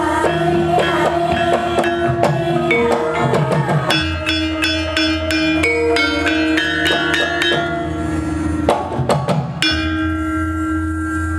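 Javanese gamelan ensemble playing: bronze keyed instruments and kettle gongs ringing over drum strokes, with a run of quick strikes in the middle. A few last strokes come about nine seconds in, and the metal tones ring on as the piece closes.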